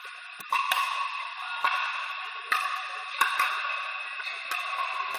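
Pickleball paddles hitting a plastic ball: a string of sharp pocks at irregular intervals, echoing in a large indoor hall, over a steady background din.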